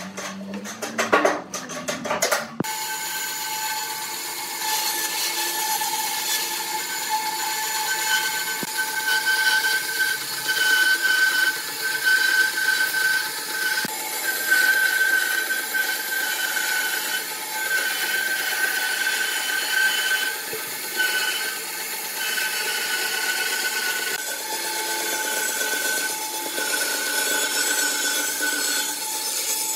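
A few short knocks and scratches, then from about two and a half seconds in a bandsaw runs steadily with a high whine while its blade cuts a curve through a wide wooden tabletop, the cutting noise swelling and easing as the board is fed.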